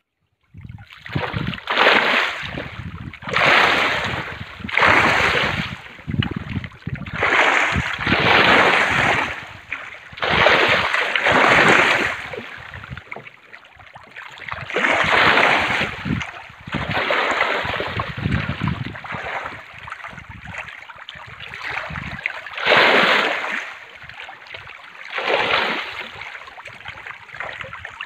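Water splashing and churning in repeated surges, about one every second or two, as farmed fish thrash at the surface of a lake fish cage.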